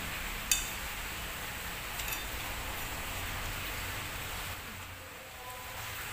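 Metal spoon clinking against a ceramic plate twice, about a second and a half apart, over a steady background hiss.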